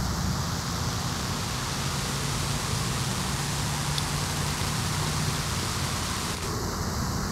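In-ground lawn sprinkler spraying water across grass, a steady hiss, with a low steady hum underneath.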